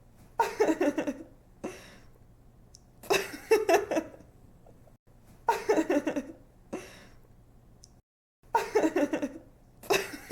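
A young woman giggling in short, bright bursts of quick ha-ha pulses, about four bursts with short pauses between them.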